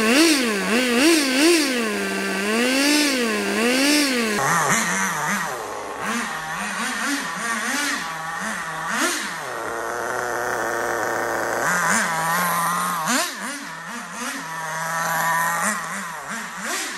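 FTX Banzai's Force .18 two-stroke nitro engine being run in on its first tank: first a series of quick throttle blips, each rising and falling in pitch, then it runs at fast idle with short revs up and down as the car drives around.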